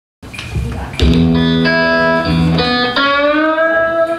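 Guitar playing a blues phrase: a few held notes and chords, then, about three seconds in, a note that slides up in pitch and rings on.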